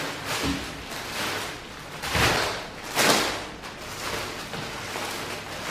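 Plastic packaging rustling and crinkling as a courier mailer bag is opened and a folded item is pulled out of a clear plastic bag, with two louder rustles about two and three seconds in.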